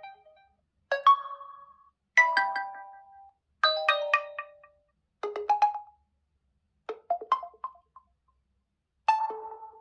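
Six short chime melodies from a realme GT2 Pro smartphone, played one after another, each a different tone about a second long that fades out before a brief gap.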